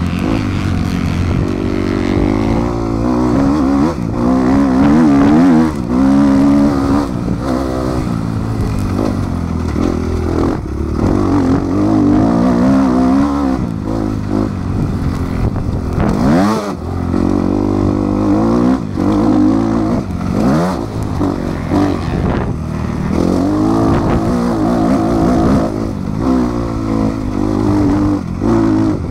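Motocross bike engine revving hard under the rider, its pitch climbing through each gear and dropping again over and over as the bike accelerates and slows around the dirt track.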